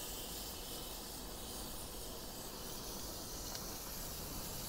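Steaks sizzling on a hot grill: a steady, even hiss.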